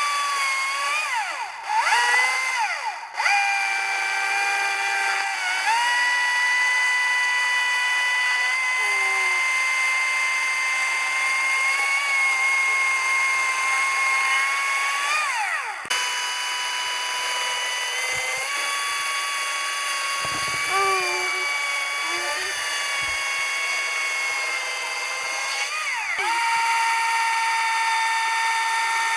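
Handheld electric power tool, drill-like, running at high speed with a steady whine. Its pitch sags several times as it is loaded and then climbs back, and it stops and restarts briefly twice.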